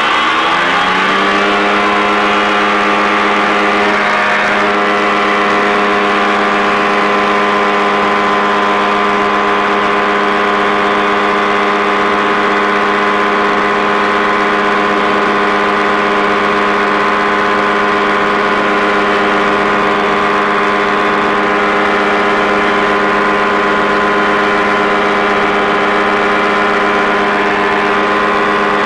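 Quad City Challenger II ultralight's engine and propeller drone in flight, a steady pitched hum that rises briefly in pitch about a second in and then holds even.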